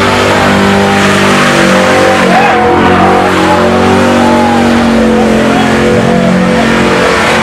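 Ford Mustang's engine held at high revs while the car spins donuts, its rear tires squealing and skidding on the pavement. The engine note stays steady, with small shifts in pitch.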